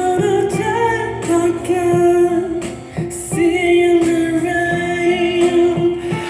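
Playback of a work-in-progress demo recording of a pop song: a sung vocal line over instrumental backing, the voice holding long notes in the second half.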